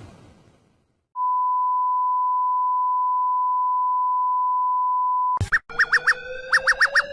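Emergency alert broadcast tones: a single steady electronic tone near 1 kHz holds for about four seconds and cuts off abruptly. About a second later, rapid high beeps in groups of four begin over a slowly rising lower tone.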